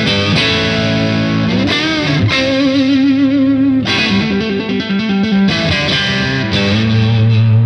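Electric guitar, a Japanese-made Squier, played through a Demonfx Prince of Sound overdrive pedal in overdrive mode with the drive turned all the way up: a distorted riff with wavering, vibrato notes in the middle, ending on a held low note.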